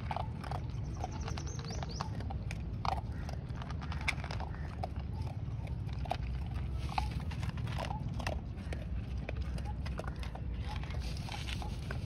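Dog eating dry kibble from a plastic bowl: irregular crisp crunches and clicks of chewing, over a steady low rumble.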